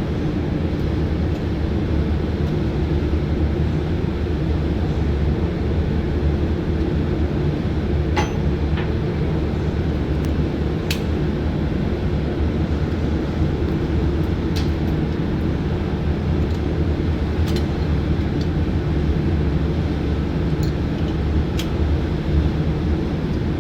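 Steady, loud low machinery drone of a ship's running machinery, unchanging throughout, with a few sharp clicks scattered through it.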